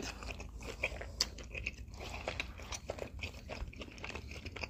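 Close-up chewing and biting of pan-fried pork potstickers, with many small irregular crunches from their crispy bottoms.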